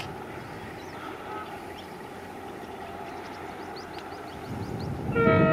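Indian Railways diesel locomotive approaching, its engine rumble growing louder, then its horn sounding a loud, steady blast about five seconds in.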